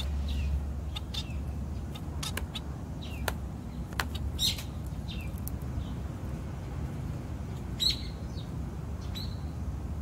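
Society finches (Bengalese finches) giving short, scattered chirping calls, a few louder ones about halfway through and near the end, over a steady low rumble.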